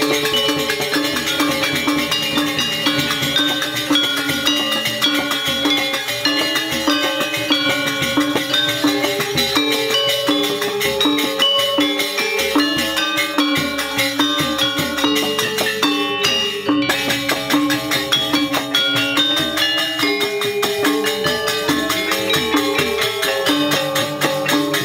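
Sasak gamelan ensemble of saron metallophones, their metal bars struck with mallets in a fast, dense, steady stream of ringing notes.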